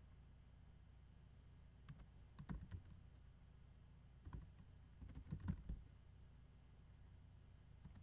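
Faint computer keyboard typing: short runs of key clicks in three groups, the longest and loudest about five seconds in.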